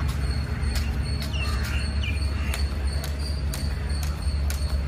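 Skipping rope slapping the concrete roof in sharp ticks, roughly one every half second, as the jumper skips. A steady low rumble runs underneath.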